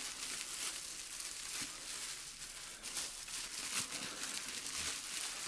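Plastic packaging crinkling and rustling continuously as a new camera is unwrapped from it, a dense run of small crackles.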